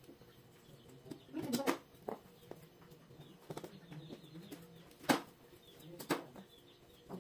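Kitchen knife knocking on a plastic cutting board as carrots are cut: a few separate sharp knocks at irregular intervals. The loudest come about five and six seconds in.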